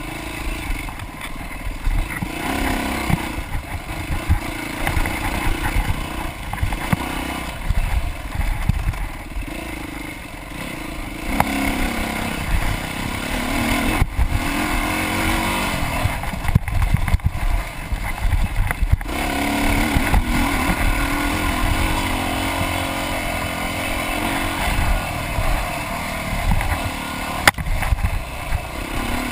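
Dirt bike engine running hard under the rider, its pitch rising and falling as the throttle opens and closes through the trail. A few sharp knocks stand out, the loudest near the end.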